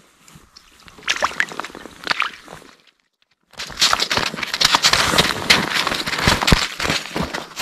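Wet slush crackling and water sloshing close to the microphone as a caught fish is handled on the slushy ice at the edge of an ice-fishing hole. It is scattered at first, breaks off briefly a little before halfway, then turns dense and louder.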